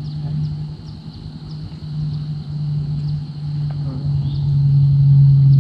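A steady low motor-like hum that grows louder toward the end and drops a little in pitch. Beneath it runs a high, steady chorus of regular chirping.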